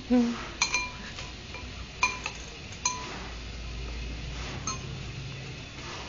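Cutlery clinking against dishes while eating: four sharp, ringing clinks a second or so apart.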